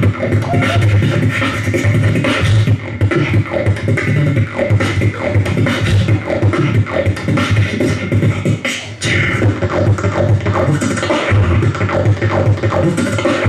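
Human beatboxing into a cupped handheld microphone: a dense, continuous rhythm of deep bass hums and sharp percussive clicks and strokes, with a brief break a little before the two-thirds mark.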